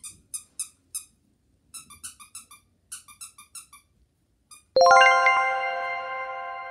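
Background music: short, high, bell-like notes in quick runs. About five seconds in, a loud chime chord rings and slowly fades.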